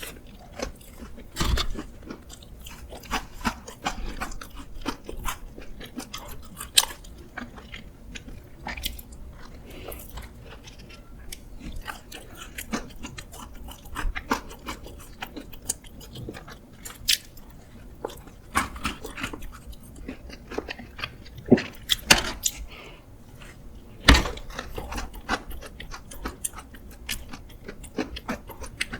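Close-miked chewing and biting of cake and pastry, with many small wet mouth clicks and crackles and a few louder sharp taps, the loudest about three quarters of the way through.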